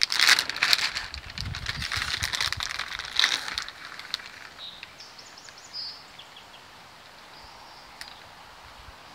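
Plastic bag of shredded Parmesan crinkling and rustling as it is tipped and shaken over the pizza for the first three or so seconds, then a few faint bird chirps over quiet outdoor background.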